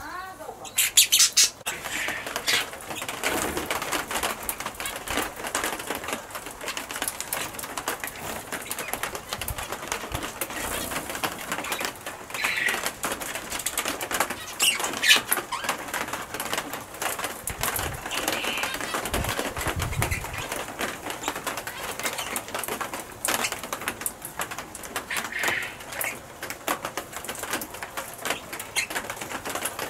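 Red-rumped parrots moving about with bursts of wing flapping and rapid clicking and scratching, with a few short chirps scattered through.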